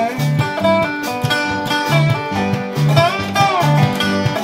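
A string band plays an instrumental break with no singing. A plucked guitar lead with some gliding notes rides over a steady bass line and strummed acoustic guitar, in a bluegrass or country style.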